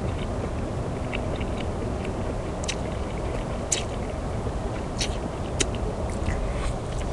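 A person eating ramen noodles: chewing and mouth noises with a few sharp clicks, over a steady low hum.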